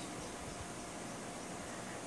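Steady faint hiss of room background noise, with no distinct knock, splash or call standing out.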